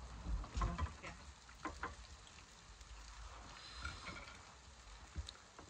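Metal spoon scooping food from a glass bowl, with a few faint clinks and scrapes in the first two seconds, over a low steady rumble.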